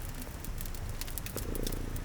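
A domestic cat purring steadily, with a swell in the purr about one and a half seconds in, layered with the scattered pops and crackles of a wood fire over a steady hiss of rain.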